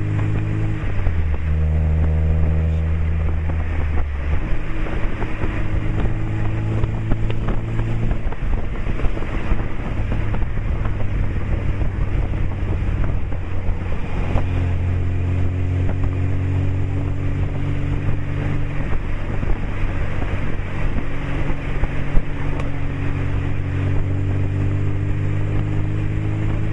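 Lada 2107's four-cylinder engine heard right at the tailpipe of its 50 mm sport exhaust with stainless tip while the car drives, with wind rushing over the microphone. The exhaust note dips in pitch about a second in and comes back up near four seconds. After a rougher, uneven stretch it settles from about fourteen seconds into a steady drone that slowly rises.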